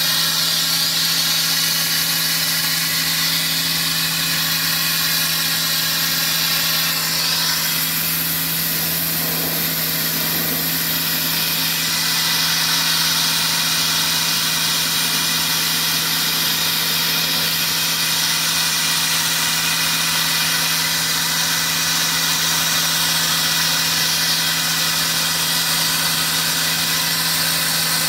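Sandblasting wood siding: the hiss of the blast stream from the nozzle, swelling and easing as it moves, over a steady engine drone from the blasting equipment.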